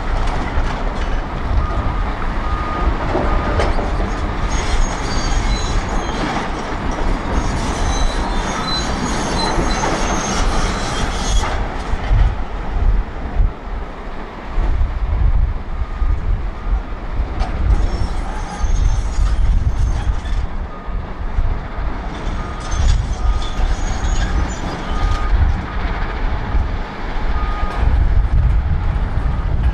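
Volvo L350F wheel loader's large six-cylinder diesel working under load as the bucket digs into a pile of blasted rock, with rock grinding and scraping against the steel bucket, strongest in the first half. The loader then drives off with the full bucket. Short repeated beeps of a reversing alarm sound mostly in the second half.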